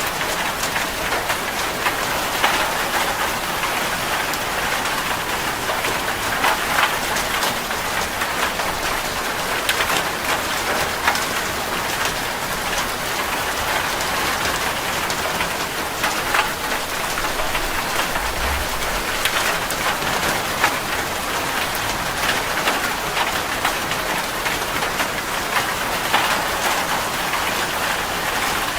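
Steady rain falling on a hard surface: a dense, even patter with individual drops ticking sharply through it.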